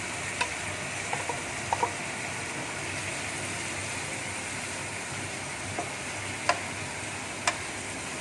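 Stir-fry of chicken, vegetables and fried tofu sizzling steadily in a wok, with scattered sharp clicks and scrapes of the spatula against the pan, the loudest two near the end.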